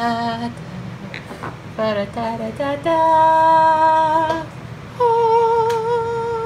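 A person humming a homemade epic fanfare: a few quick notes, then two long held notes, the second one higher and wavering.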